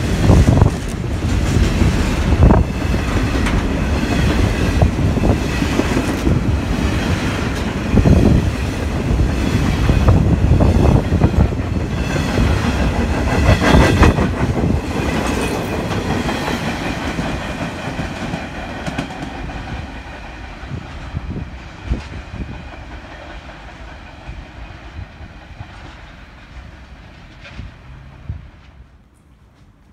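Container freight train passing, its wheels clacking over the rail joints. It fades steadily away over the second half as the train recedes.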